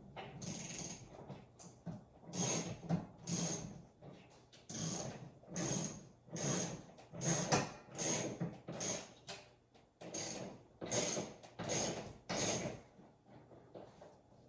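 Ratchet wrench worked back and forth in repeated strokes, about one a second, clicking with each swing, as bolts are driven in to fix a TV wall mount.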